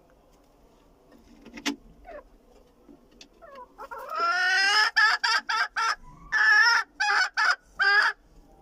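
A rooster crowing about four seconds in: a long rising call that breaks into a string of short, choppy notes.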